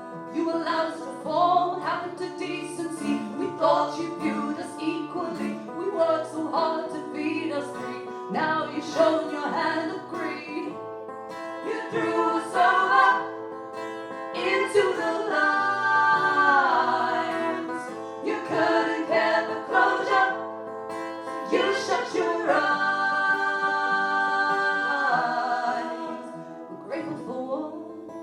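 Live acoustic folk song: singing over plucked acoustic guitar, with long held sung notes, one of them sliding down in pitch about halfway through.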